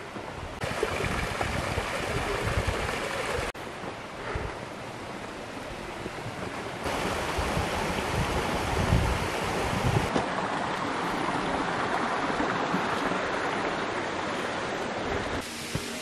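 Rushing water of a mountain stream and partly frozen waterfall, with wind buffeting the microphone; the sound changes abruptly several times as shots cut. Music comes in near the end.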